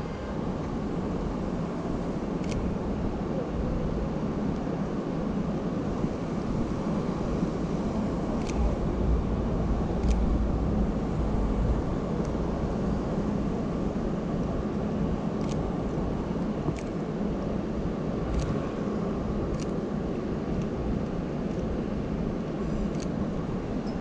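Steady city street noise, a constant traffic rumble, with a sharp click every second or few.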